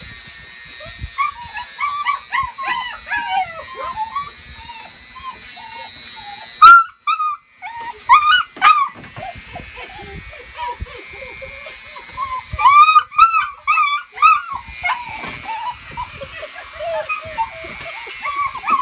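An eight-week-old puppy whining and yelping in a string of short, high, bending cries as its nails are ground with a Dremel rotary tool, the loudest yelp about six and a half seconds in and another burst of cries a little past halfway. The tool's thin steady whine runs faintly beneath at times.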